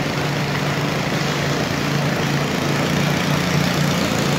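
Industrial water pump with a 3.0 motor running steadily, with a gush of muddy water pouring from its 114 mm discharge pipe and splashing onto the water.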